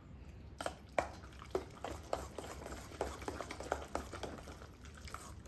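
Pasta being stirred through a creamy pesto sauce with a utensil: irregular wet squelches and light clicks, about two a second.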